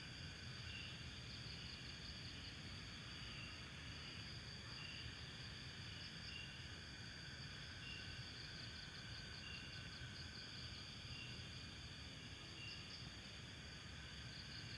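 Night insects calling: a steady high trill with short chirps every second or so, over a faint low rumble.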